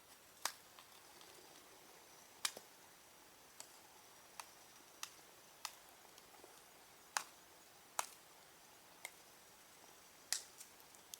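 Campfire crackling: about ten sharp, irregular pops and snaps over a quiet background.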